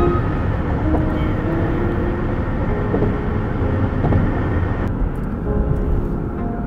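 Slow background music with long held notes that step between pitches, over a steady low rumble.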